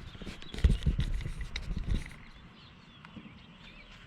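Handling noise: a few sharp knocks and low thumps in the first two seconds as the trolling motor is moved. Then a quiet outdoor background with faint bird chirps.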